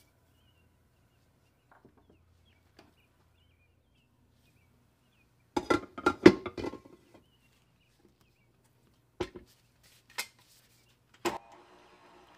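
A glass mixing bowl clattering and knocking as it is set into a stand mixer, followed by a few single knocks. Near the end the stand mixer's motor starts and runs with a steady hum as the dough hook begins turning the flour.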